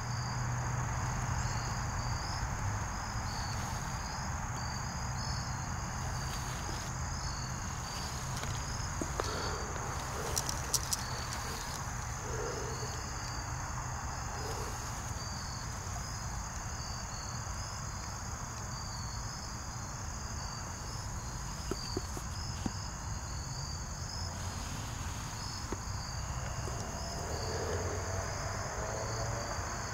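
Crickets chirping: a steady high trill with a second, pulsing chirp repeating evenly over it. A few sharp clicks sound about ten seconds in.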